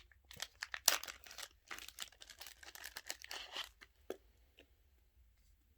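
Card packaging crinkling and tearing as it is opened by hand: a dense rustle lasting about three and a half seconds, then a single tick about four seconds in.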